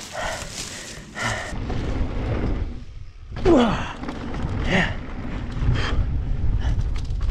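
Mountain bike riding down a dry dirt trail: a steady low rumble of wind on the body-mounted camera and tyre noise starts about a second and a half in. Before that, brush rustles, and the rider's short falling-pitch breaths or grunts come twice midway.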